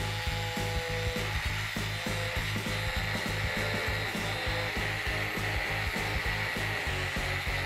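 Electric angle grinder running steadily, a constant high motor whine.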